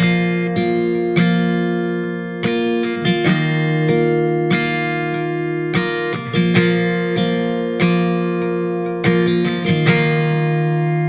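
Acoustic guitar playing an instrumental passage of a worship song, with chords picked and strummed and left ringing, and no singing.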